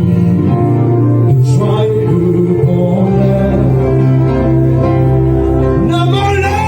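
Gospel worship music with singing: sustained chords over a steady bass, with voices rising in near the end.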